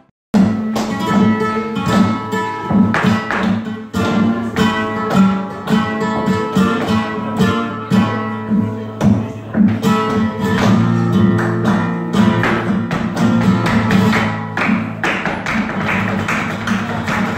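Flamenco-style music led by fast plucked guitar, starting abruptly after a brief gap.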